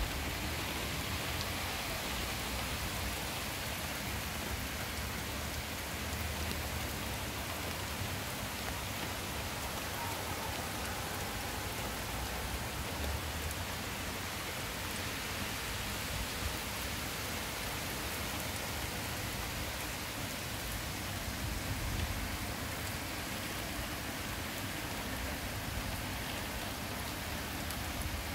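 Rain falling steadily on trees, lawns and wet paved paths, an even hiss that does not let up.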